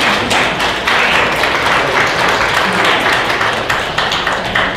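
A roomful of people applauding, a dense steady patter of many hands clapping.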